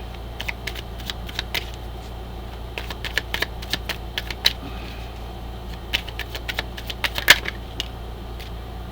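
Oracle cards being handled and drawn: scattered light clicks and snaps at an irregular pace, one sharper snap about seven seconds in, over a steady low hum.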